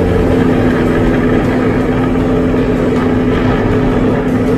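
Diamond DA40 single-engine piston aircraft's engine and propeller running at takeoff power during the takeoff roll, a loud, steady drone heard inside the cockpit.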